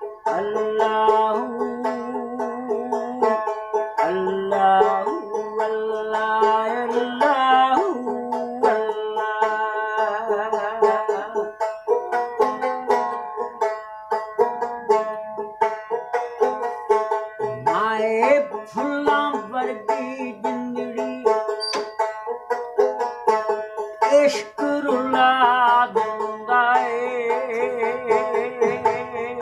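A plucked string instrument playing a wavering melody over steady held drone notes.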